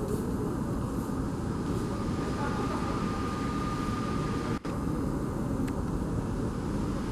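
Airbus A320neo's CFM LEAP-1A jet engines running as a steady low rumble on landing, with a faint whine through the middle and a brief drop-out about four and a half seconds in.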